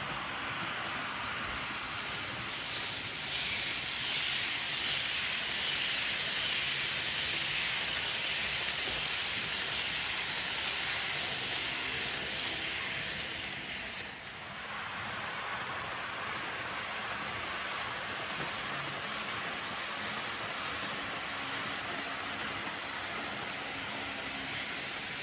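Märklin H0 ICE 4 model train running on Märklin C-track: a steady rolling rumble of the wheels and the motor car's hum. It is louder for the first half, dips briefly about fourteen seconds in, then runs on evenly.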